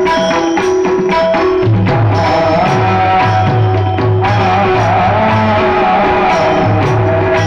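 Marathi devotional kirtan music: a hand drum keeps a steady rhythm under held melody notes, with frequent sharp metallic clicks on the beat. A wavering sung or played line rises over it about halfway through.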